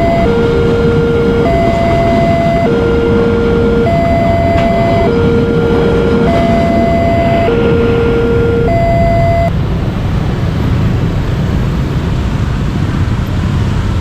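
Railway level crossing warning sounder playing an alternating low-high two-tone signal, each tone lasting a little over a second, stopping about nine and a half seconds in. A steady low rumble runs underneath and continues after the tones stop.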